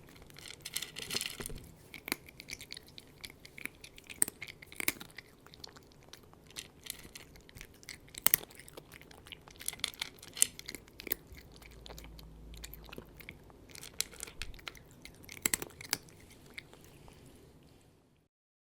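A cat eating, with irregular crunching and chewing of its food in clusters of sharp bites, the track cutting out near the end.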